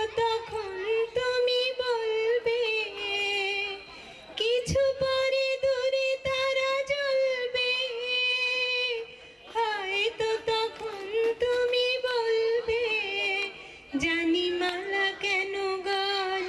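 A woman singing solo into a handheld microphone, long held notes in phrases with short breaths between them.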